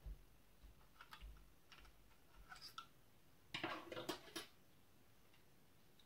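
Faint scattered clicks and taps of steel tweezers and small metal camera-finder parts being handled on a tabletop, with a short burst of louder clicking and scraping about three and a half seconds in.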